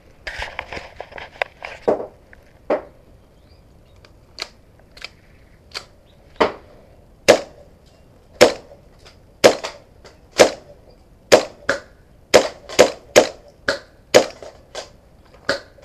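Airsoft pistol firing a string of single shots, sharp cracks about a second apart at first and quickening to about two a second toward the end.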